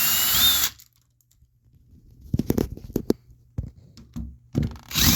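Small cordless electric drill running, driving out a Phillips screw from a door lock, its whine rising in pitch, then stopping under a second in. A few light clicks and taps follow, and the drill starts up again near the end.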